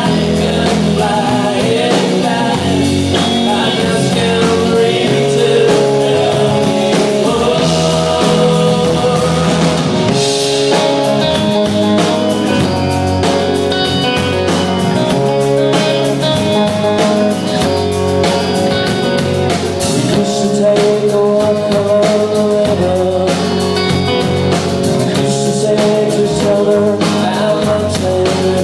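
Live rock band playing electric guitars, bass and a drum kit, with a male lead vocal.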